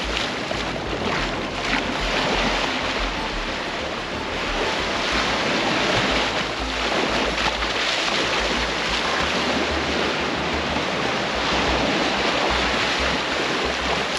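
Surf washing onto a sandy beach, with wind rumbling on the microphone.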